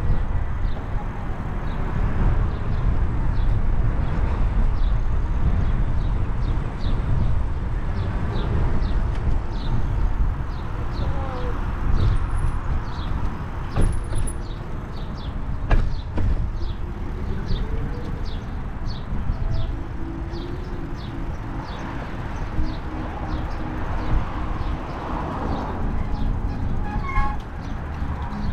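Wind buffeting the microphone of a camera on a moving bicycle, a steady low rumble, with a faint regular ticking about twice a second.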